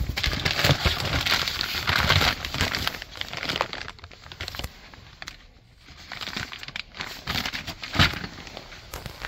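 Plastic packaging crinkling and rustling as it is handled, in two spells, with a sharp knock about eight seconds in.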